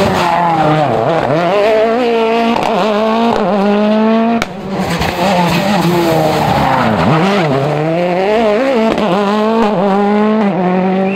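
World Rally Car's 1.6-litre turbocharged four-cylinder engine at race pace, revs dropping and climbing again and again through quick gear changes and lifts, with tyres sliding on the surface. The sound breaks off sharply about four and a half seconds in and picks up again with the same kind of running.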